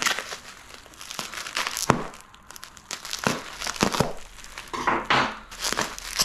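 Plastic bubble wrap crinkling and rustling in the hands as a wrapped part is unwrapped, with irregular sharp crackles.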